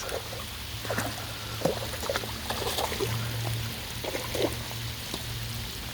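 Pouring rain falling steadily, an even hiss of rain over a faint steady low hum.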